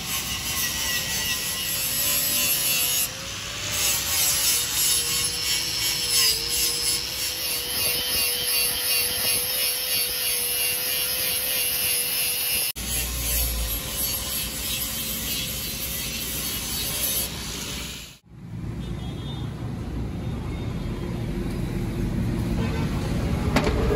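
Angle grinder with an abrasive disc grinding old paint and rust off the steel cylinder of a hydraulic jack: a steady motor whine under a loud scraping hiss of disc on metal. The sound breaks off briefly a few times and picks up again.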